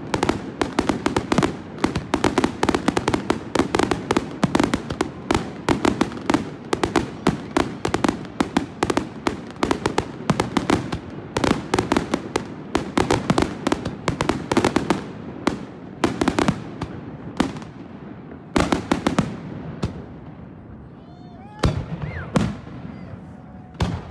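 Fireworks shells bursting in a rapid barrage of sharp bangs, many each second. The barrage thins out about three-quarters of the way through, leaving a short lull and then a few single booms.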